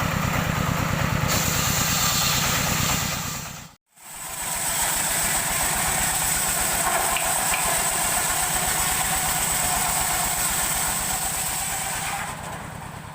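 Engine of a portable sawmill running steadily with an even, rapid pulse. The sound cuts out abruptly for a moment about four seconds in, then resumes and fades away near the end.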